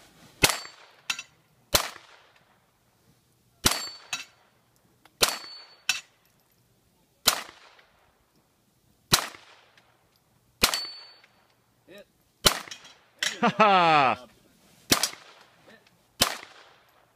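Handgun shots fired one at a time, about a dozen, spaced one to two seconds apart. Several are followed by a brief high ring from a struck steel target.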